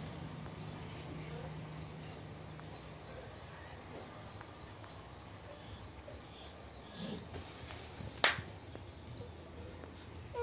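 Quiet background ambience with a low hum, a few faint high chirps and one sharp click about eight seconds in.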